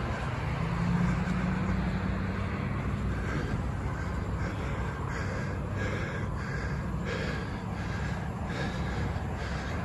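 Vehicle engine running steadily, a low hum with a held low tone.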